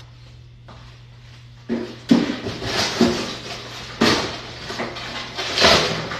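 Household objects being handled and moved: a series of about five sudden knocks and rattles, starting a second and a half in, over a steady low hum.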